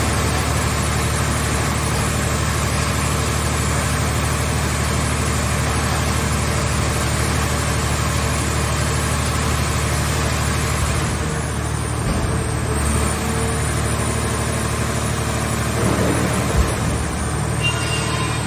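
Engine of a car-shell scrap baler running steadily, with a short knock near the end.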